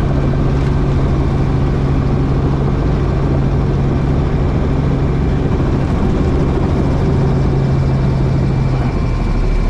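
Helicopter engine and rotor running in flight, a loud steady drone heard from on board. The drone's tone shifts lower about nine seconds in.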